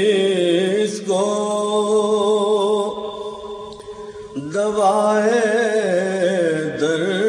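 Male voice singing an Urdu naat in long, wavering held notes over a steady low drone. About three seconds in the singing thins and drops, and it swells back about a second and a half later.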